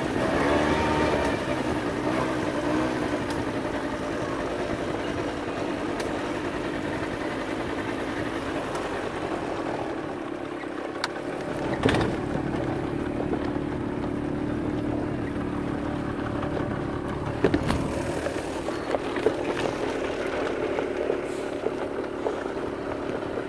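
Off-road vehicle engine running at low speed on a rough dirt track, its pitch wavering at first and then holding steady, with a few sharp knocks about halfway and again near the end.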